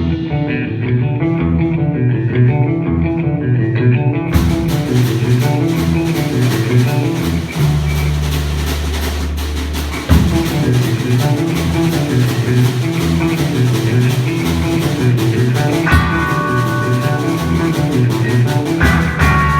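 Rock band playing: a repeating guitar and bass riff over a drum kit, with cymbals coming in about four seconds in, a held chord around eight seconds in, then the riff resuming.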